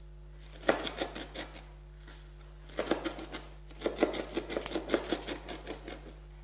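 Mezzaluna chopping a bunch of fresh coriander leaves: a short run of quick chops of the blade on the board about a second in, then a longer, faster run of rapid chops.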